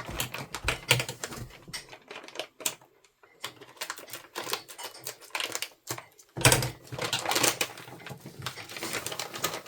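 Plastic toy packaging crinkling and rustling as it is handled and torn open, a busy run of irregular crackles and clicks with a short pause about three seconds in.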